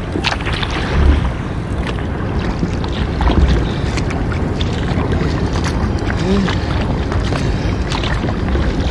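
Water splashing and lapping around a kayak as it is paddled along a river, with many short splashes over a steady rushing noise.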